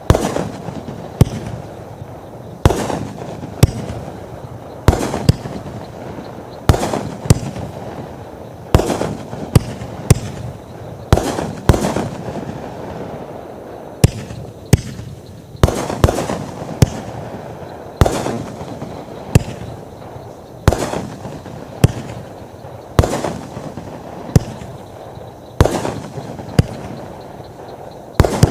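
A 63-shot, 500-gram fireworks cake (USA Command) firing shot after shot. Sharp bangs come about every second, sometimes two close together, each followed by a short fading tail of bursting effects.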